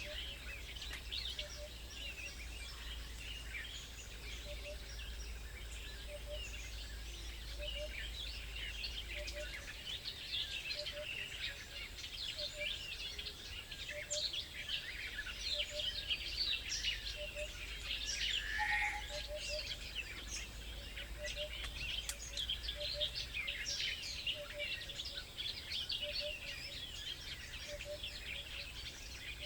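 Many small birds chirping and twittering at once, a dense chorus of short high calls with one louder call about two-thirds of the way through. A soft low note repeats about once a second, and there is a faint low rumble that drops away about a third of the way in.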